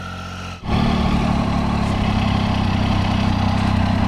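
Triumph Tiger 800XCx motorcycle's three-cylinder engine idling steadily. About half a second in, the sound drops out for a moment and comes back louder.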